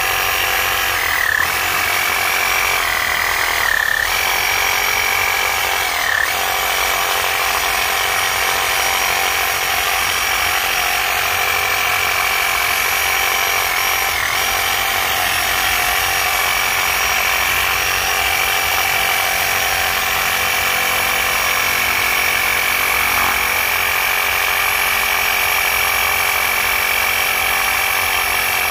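A power tool running steadily while it lays an antenna radial wire into the ground. Its high whine dips briefly in pitch about four times in the first quarter of the run, as the tool takes load.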